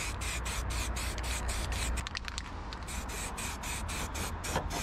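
Aerosol spray-paint can hissing as paint is sprayed onto the engine bay metal, with a short break about two seconds in.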